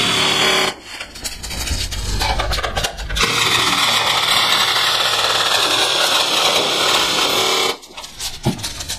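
G&G CM16 Carbine airsoft electric gun firing on full auto, broken by two pauses of about two seconds, one about a second in and one near the end.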